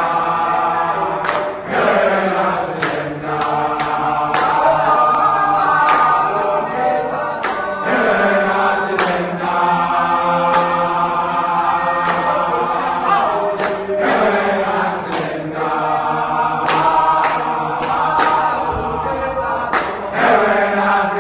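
A group of voices singing a gwijo, a South African rallying chant, with a sharp beat about every second and a half.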